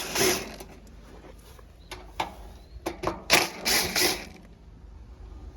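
Clicks and short scraping, rustling bursts from a condensing unit's cover being handled and taken off to reach the compressor, the loudest cluster about three to four seconds in.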